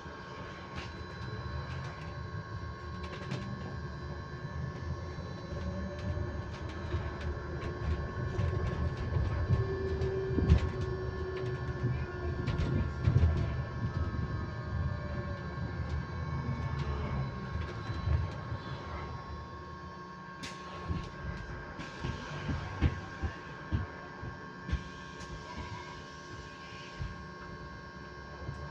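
Electric bus heard from inside, giving off a steady high-pitched noise on a constant pitch over the rumble and knocks of the ride. Midway a lower motor whine rises and falls as the bus moves off and slows.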